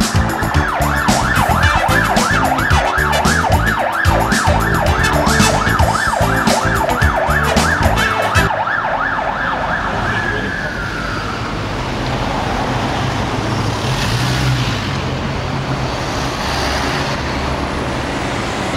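Ambulance siren in a fast rising-and-falling yelp, which glides down in pitch and dies away about ten seconds in. Steady city traffic noise with a low engine hum follows.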